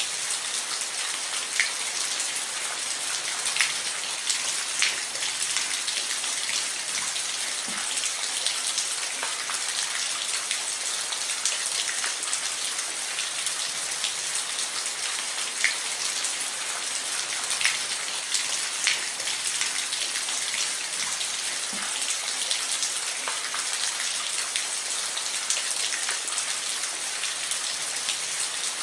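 Steady rain falling on a roof, an even hiss with scattered individual drops ticking sharply.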